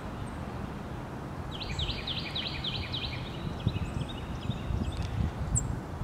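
A small songbird calling: a quick run of about eight sharp, down-slurred notes starting about a second and a half in, trailing off fainter, with one short high chip near the end. A steady low outdoor rumble runs underneath.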